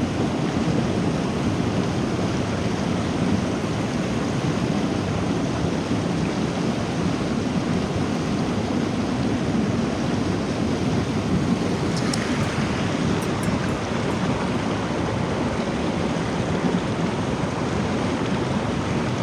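Steady rush of a mountain river's flowing water, with a few faint clicks about twelve seconds in.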